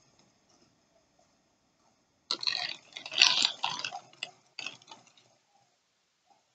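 Foil snack bag crinkling as it is handled, a run of crackling lasting about three seconds that starts about two seconds in.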